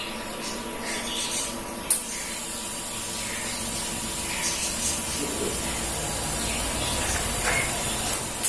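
TIG welding arc on aluminium: a sharp click about two seconds in, then a steady hiss over a low hum.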